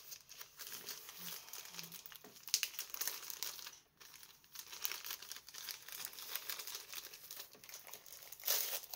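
Plastic packaging crinkling and crackling as a rolled diamond painting canvas in its plastic wrap is handled and unwrapped, with louder bursts about two and a half seconds in and near the end.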